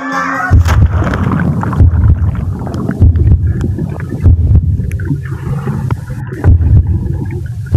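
Muffled underwater noise picked up by a phone submerged in a swimming pool: a low rumble of sloshing water and bubbles, swelling in loud surges about once a second.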